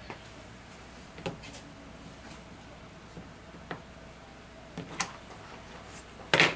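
Small handling sounds as a strip of homespun cotton fabric is knotted around taper candles: a few soft scattered clicks and rustles, then a sharp scissors snip through the fabric near the end, the loudest sound.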